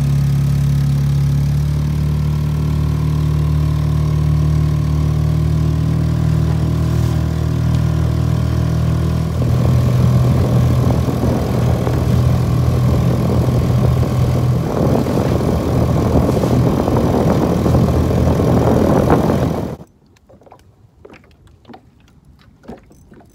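Small 2-horsepower outboard motor running steadily, pushing a mini boat along. About ten seconds in, a rougher, noisier layer of water and hull noise joins the motor. Near the end the sound cuts off suddenly, leaving only faint clicks and knocks.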